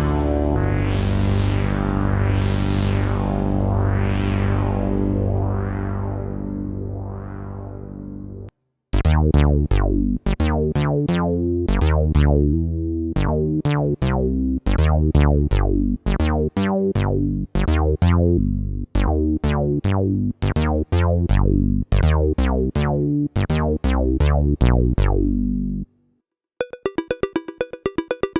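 Roland PROMARS synthesizer presets being played. First comes a held chord whose filter sweeps open and shut about every second and a half, fading out. Then comes a rhythmic sequence of plucked synth-bass notes with sharp attacks. Near the end a new patch starts, a fast stream of bright repeating pulses.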